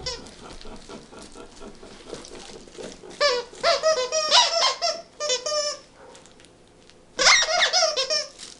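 Squeaky plush cow toy squeaking repeatedly as a wirehaired dachshund bites and chews it: a run of squeaks starts about three seconds in, and a second run comes about seven seconds in.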